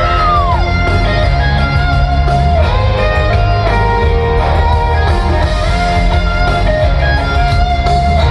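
Live country band playing through the arena PA, heard from the crowd: an electric guitar leads over strummed guitar and bass, with no vocals in this stretch. A single guitar note bends up and falls back about the first half-second in.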